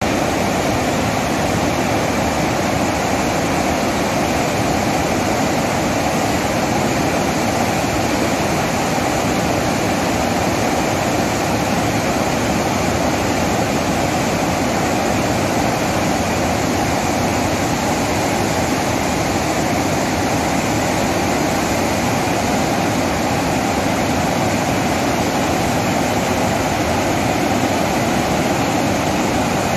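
Water thundering through the open spillway gates of a large dam and crashing into the churning pool below: a steady, unbroken rush.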